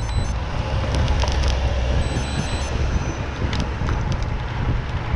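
Wind noise buffeting the microphone of a bike-mounted camera on a moving road bicycle, mixed with road and tyre rumble and a few short clicks.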